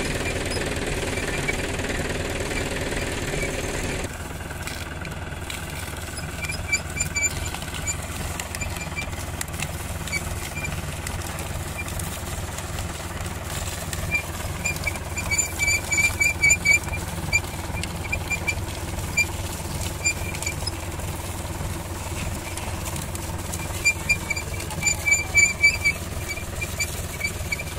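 Tractor engine running steadily, belt-driving a cast-iron sugarcane crusher. Groups of short, high, rapidly repeated squeaks come from the crusher as cane stalks are fed through its rollers.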